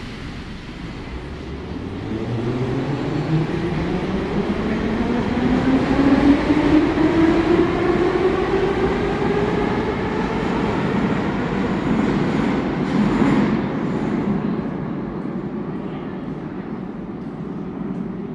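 Metro train pulling out of a station: the whine of its traction motors rises steadily in pitch over about the first ten seconds as it picks up speed, over the rumble of wheels on rails. The noise then fades away as the train leaves.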